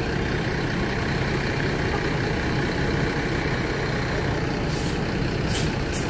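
Mercedes-Benz OH 1526 coach's diesel engine running steadily as the bus creeps through a slow turn. Near the end come two short hisses of air from its air brakes.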